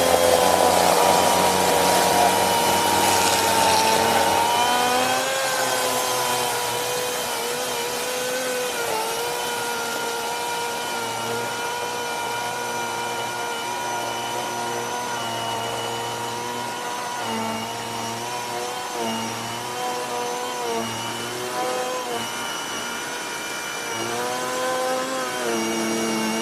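Greenworks cordless chainsaw's electric motor running with a steady whine. A rough sawing noise of the chain in wood lies over it for the first few seconds, and the pitch sags briefly and recovers now and then as the chain bites.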